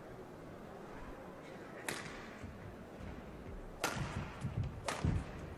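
Badminton rally: rackets smacking the shuttlecock, a lighter hit about two seconds in, then two loud sharp hits about a second apart near the end, with low thuds between them over a steady hall murmur.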